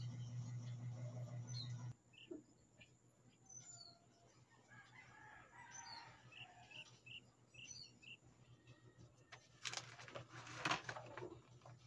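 Faint bird chirps and a rooster crowing. A low hum cuts off about two seconds in. Near the end, notebooks and papers rustle and knock on a wooden desk as they are gathered up.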